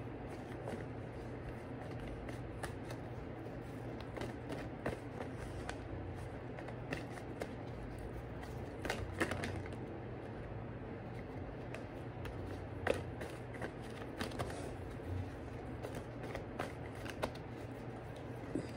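A tarot deck being shuffled by hand: a steady run of small card clicks and taps over a low, steady hum.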